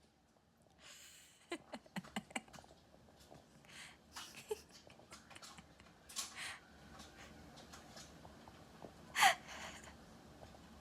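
A baby's breathy huffs and gasps, with a short squeal that falls in pitch about nine seconds in, and a run of light taps and clicks early on from handling.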